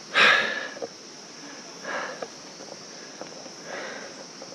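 A man breathing out hard three times, about two seconds apart, the first the loudest, catching his breath after a steep uphill walk. A steady high insect buzz runs underneath.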